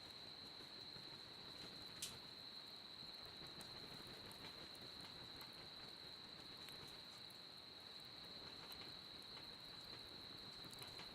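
A cricket trilling in one steady, unbroken high tone, with faint scattered crackles from a wood fire and one sharp pop about two seconds in.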